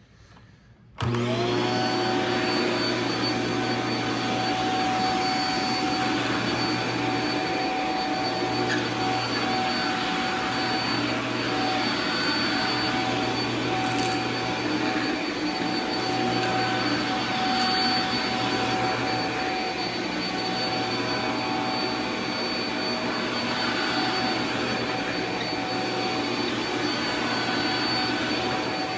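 Shark MultiFlex vacuum cleaner switched on about a second in, then running steadily: a motor hum and airflow noise under a constant high whine.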